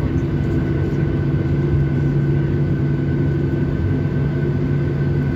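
Boeing 737-700's CFM56 jet engines heard from inside the passenger cabin: a steady low drone with a thin, steady whine above it, with no rise or fall in pitch.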